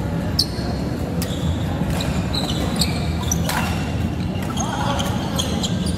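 Badminton rally: rackets sharply striking the shuttlecock about once a second, with short high squeaks of shoes on the court floor between the hits, over a steady low hum.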